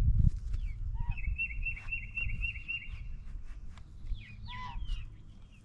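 Birds chirping: a fast trill of repeated notes for about two seconds, then scattered short downward chirps, over a low rumble.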